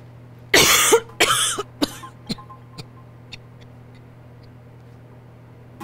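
A woman coughing: two loud, drawn-out coughs about half a second in, then two shorter, weaker ones.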